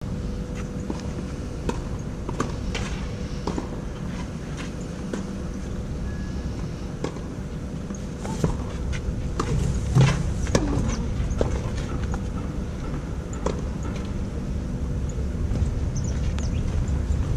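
Tennis rally on a clay court: a sharp pop each time a racket strikes the ball, at irregular intervals about a second apart. The loudest pop comes about ten seconds in, over a steady low background rumble.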